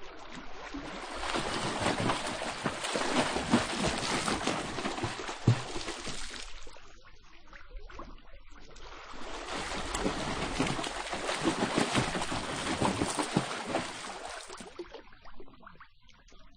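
Swimmer's strokes splashing and churning in water, in two spells of about five seconds each with a quieter pause between.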